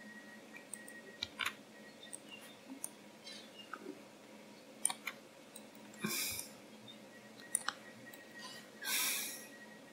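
Faint, scattered clicks of a computer mouse and keyboard, several single and paired clicks, with two short soft rushes of noise about six and nine seconds in.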